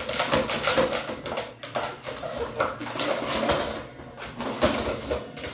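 Plastic ball-track puzzle toy clicking and clattering as a puppy paws at it and tries to flip it on a hardwood floor: a string of irregular clicks and taps.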